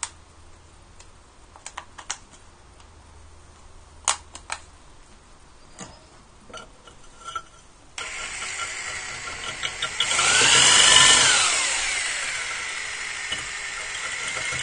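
Electric drill with a 12 mm masonry bit boring into the hole of a ceramic toilet-tank lid to widen it. A few light clicks and knocks of handling come first, then the drill starts about eight seconds in. Its pitch sags and recovers as the bit bites into the ceramic, then it runs steadily.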